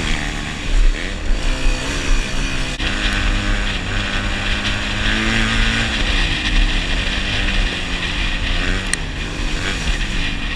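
Yamaha TT-R125's single-cylinder four-stroke engine running under way on a dirt trail, its pitch rising and falling repeatedly as the throttle opens and closes, with wind rumble on the microphone.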